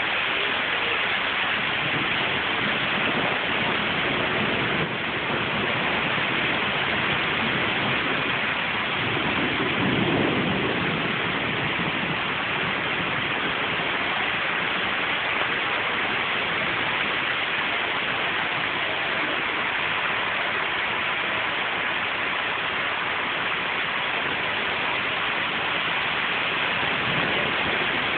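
Heavy rain pouring steadily, a dense even hiss, with a brief low rumble swelling about ten seconds in.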